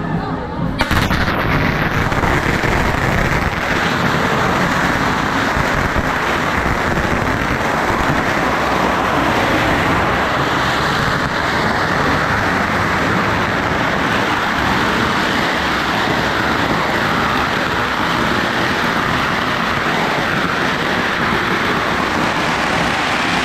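Firecrackers going off on the street: a dense, unbroken crackle of rapid bangs that starts suddenly about a second in and keeps up steadily.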